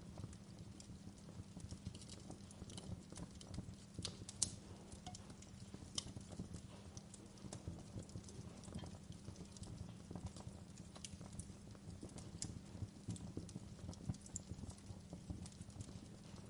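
Wood fire burning in a fireplace, crackling and popping irregularly over a low rumble from the flames, with a sharper pop about four seconds in.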